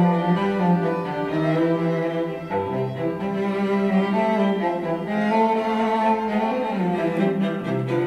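Classical string music, cello and violins playing slow held notes, reproduced through a pair of iLoud Micro Monitor compact powered speakers and picked up by a microphone in the room.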